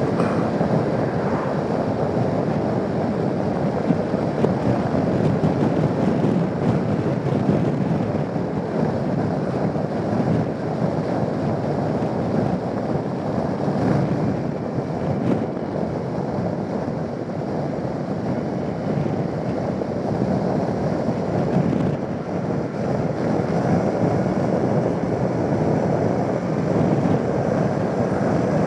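Steady wind rushing over the microphone with road and engine noise underneath, from a Suzuki Burgman 650 maxi-scooter on the move.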